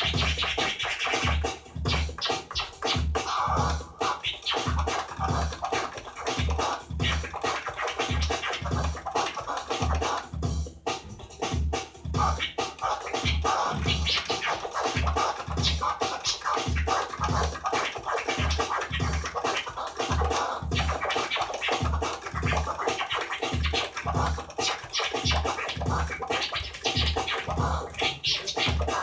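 DJ scratching on a Gemini CDT-05 Pro hybrid turntable, the scratches chopped in and out with the crossfader, over an electronic beat with a steady kick drum about twice a second.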